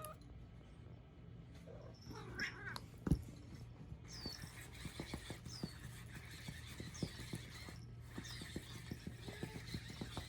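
A motorized chirping cat toy giving short, falling electronic bird chirps about every second and a half, over a rapid ticking and rattling as it runs on the floor. Earlier there is a short meow-like call and a single thump about three seconds in.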